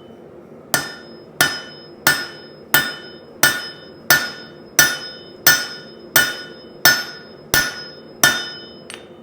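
Hand hammer striking a steel bar being forged into a sword, twelve evenly paced blows about one and a half a second apart, each with a short metallic ring.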